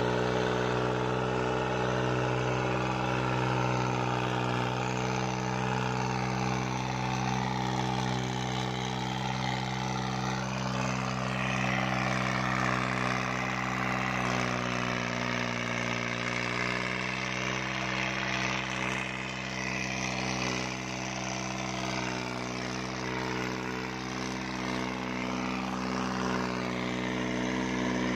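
New Holland 3630 tractor's diesel engine running steadily under load as it pulls a disc harrow through ploughed soil.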